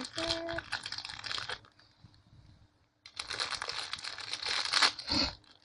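Crinkling and rustling of packaging being handled, in two spells with a pause of about a second and a half between them, and a brief squeak early in the first spell.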